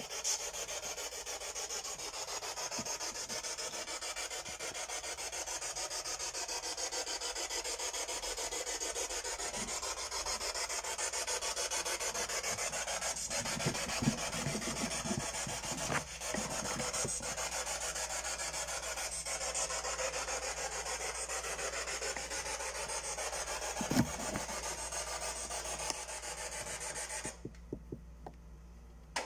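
A steady, rasping, static-like hiss that cuts off suddenly near the end, with a few soft low thumps in it, the clearest about halfway through and about three-quarters through.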